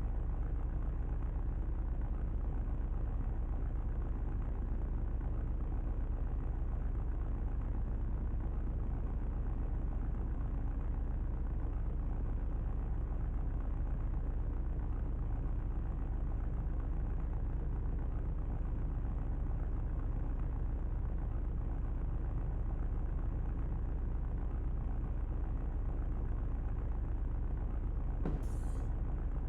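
A vehicle engine running steadily, a constant low rumble with no change in speed. A brief hiss about a second before the end.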